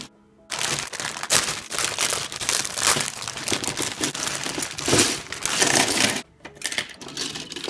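Clear plastic bag full of plastic model parts crinkling as hands handle and open it, a dense crackle that eases to lighter, scattered crinkles about six seconds in.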